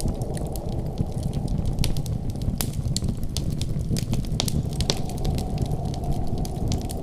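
Wood fire in a fireplace crackling: scattered sharp pops, thickest in the middle, over a steady low rumble.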